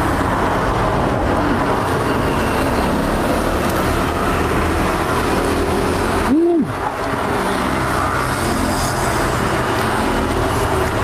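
Steady road traffic noise with vehicle engines running by. About six seconds in, it is briefly broken by a short rising-and-falling hum.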